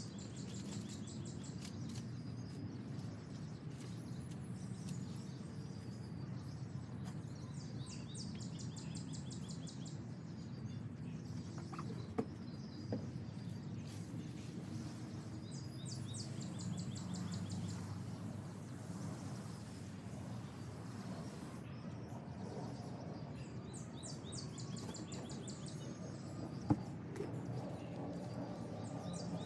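Outdoor background noise with a steady low rumble and birds chirping in short, rapid trills on and off, plus a few faint clicks.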